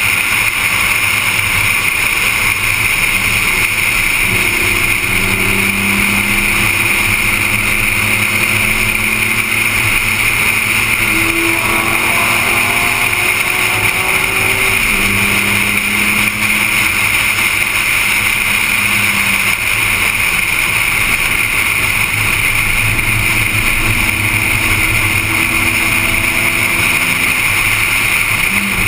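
Car driven at speed on a race track, heard from a low-mounted onboard camera: a loud, steady rush of wind and road noise, with the engine note rising and falling as the car accelerates and lifts.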